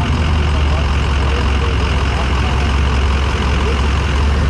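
Gas engine of a stock 1977 Ford F-350 pickup running steadily with a deep rumble, settling lower in pitch right at the start.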